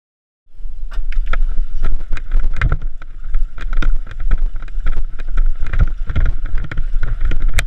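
Aquaskipper hydrofoil being bounced along over water, with water splashing and slapping at the foils in many short sharp hits. Heavy wind rumble on the handlebar-mounted camera's microphone. The sound starts suddenly about half a second in.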